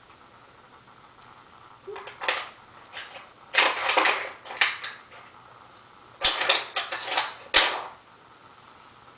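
A string of rattling, clattering bursts of hard objects being handled and rummaged through, in two loud clusters a few seconds in and again about two-thirds of the way through.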